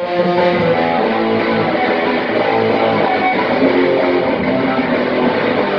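Electric guitar playing continuously, loud chords and notes.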